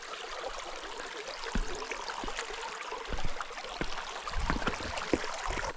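Creek water running over rocky shallows, a steady rushing hiss, with a few low thumps about one to two seconds apart.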